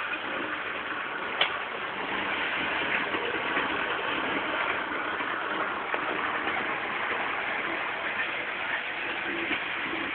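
Model railway train running during shunting: a steady rushing hum with scattered small clicks, a sharper click about a second and a half in.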